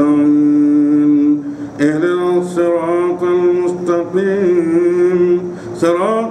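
A man's voice chanting in Arabic in long, melodic held notes, in the style of the imam's aloud Quran recitation leading the congregational Friday prayer. The first note is held for about a second and a half. Brief breaths come after it and again near the end.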